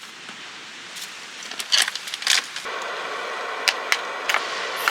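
Food frying: a steady sizzle with sharp pops and crackles of spattering fat. The sizzle jumps up loud about two and a half seconds in.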